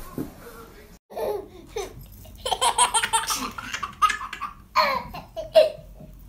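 A baby laughing in repeated short bursts, with a couple of high falling squeals midway.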